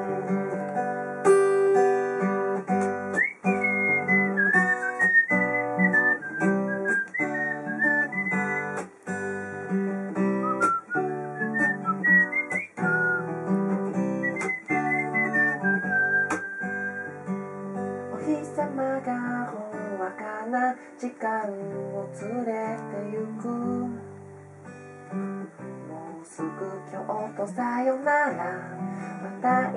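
Acoustic guitar music, plucked and strummed, with a high, thin melody line gliding over it through the first half.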